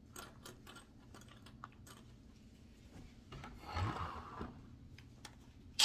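Faint rubbing and light clicks of hands turning an RC truck wheel to thread its wheel nut on. A short rustle comes about four seconds in, and a sharp click near the end.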